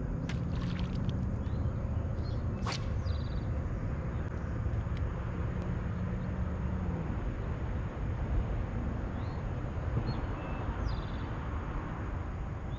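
Wind buffeting the microphone on a boat's deck, with a steady low hum that stops about seven seconds in. A sharp click comes near three seconds in, and there are a few faint bird chirps.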